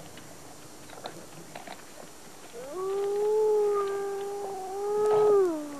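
A wolf howling: one long howl starting about halfway through, rising at first, held steady, then falling away at the end. Faint clicks come before it.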